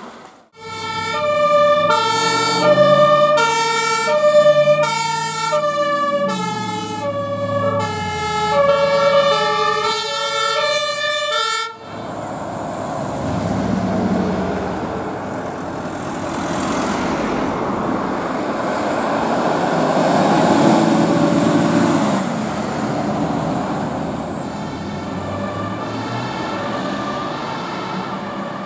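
German two-tone emergency siren (Martinshorn) sounding loudly, alternating between a high and a low tone about once a second. After an abrupt cut about 12 seconds in, it gives way to engine and street noise from fire engines pulling away. The two-tone siren returns faintly near the end.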